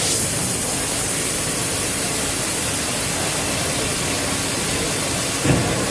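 Steady, loud hiss of a CNC plasma torch cutting heavy steel plate, with one short thump near the end.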